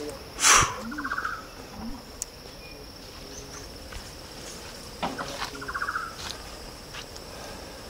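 Rainforest birdsong over a steady high insect drone. A bird gives a loud harsh call followed by a short rattling trill, twice, about five seconds apart.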